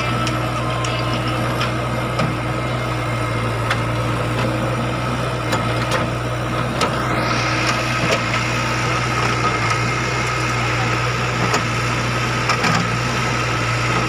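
JCB 3DX backhoe loader's diesel engine running steadily under load while the backhoe bucket digs into a pile of red stone, with scattered knocks of stone and bucket. About halfway through, a rising whine sets in and holds.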